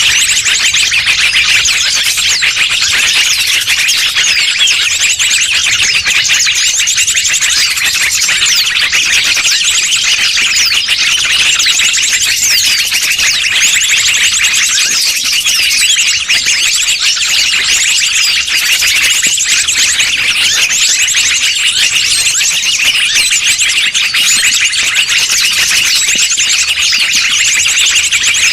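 Bird-lure recording: a dense, unbroken chorus of many small birds' high-pitched chirps and rapid trills, played to draw wild birds in.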